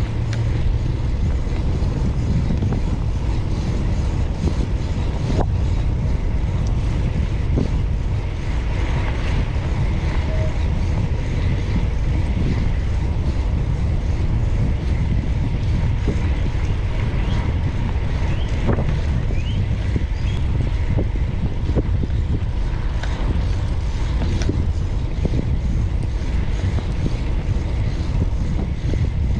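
Steady wind rush buffeting the microphone of a rider moving on a bicycle, a constant low rumble with no breaks.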